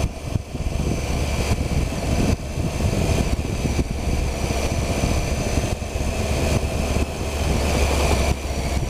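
Triumph Tiger 800's three-cylinder engine running as the motorcycle rides along a city street, a steady low rumble heard from the rider's position.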